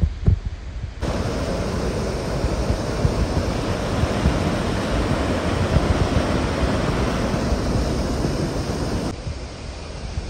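Mountain stream cascade: white water rushing steadily over and between granite boulders. It sets in about a second in and drops away near the end to quieter wind on the microphone. Wind buffets the microphone with a few low thumps at the very start.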